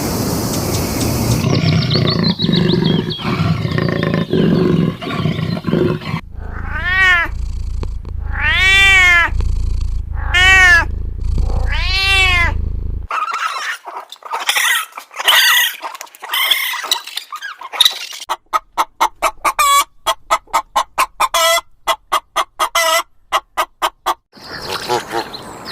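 A series of different animal calls edited one after another: four arching, pitched cries about a second and a half apart, then shorter calls, then a fast run of short repeated pulses.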